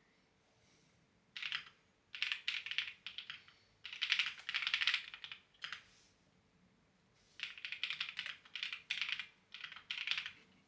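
Clacky computer keyboard being typed on in quick runs of keystrokes with short pauses between them.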